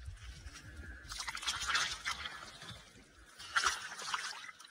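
Small RC crawler truck driving over rough, wet or loose ground, with two bursts of crackling, splashy noise from its tyres and drivetrain, about a second in and near the end.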